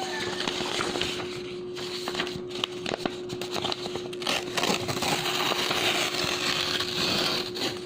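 Sheets of clean bond paper being torn, a crisp crackling rip that gets louder and denser in the second half.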